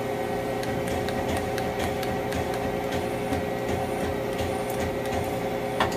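Yang CK-2A CNC turning center running under power, a steady machine hum with light scattered ticks and one sharper click near the end.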